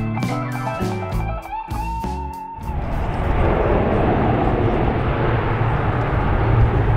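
Guitar-led background music that cuts off suddenly about two and a half seconds in. It gives way to a steady, noisy aircraft engine rumble with a low hum underneath.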